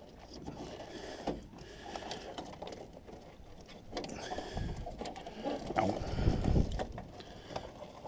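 Wiring-loom plugs and plastic clips being handled and pushed into place inside a car door: irregular rustling and small clicks, with a louder knocking patch about six seconds in.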